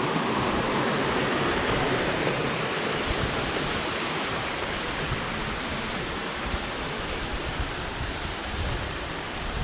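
Steady rush of running water, a stream or waterfall, slowly growing a little quieter.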